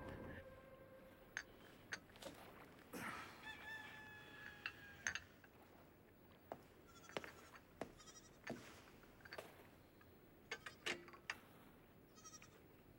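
A rooster crows once, about three seconds in, with a slightly falling pitch. Around it come scattered light clinks of china teacups and saucers being set down and handed round.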